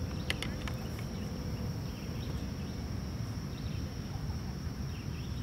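Outdoor waterside ambience: a steady low rumble with a constant high-pitched insect drone over it, a few sharp clicks just after the start and faint bird chirps now and then.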